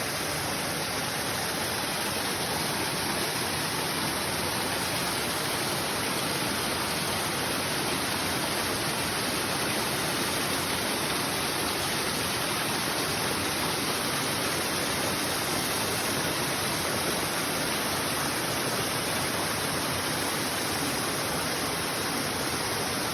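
Waterfall rushing steadily, an even roar of falling water.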